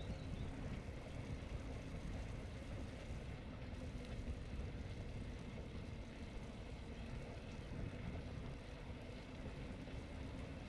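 Steady low rumble of wind buffeting the microphone on a moving bicycle, mixed with tyre noise on an asphalt cycle path.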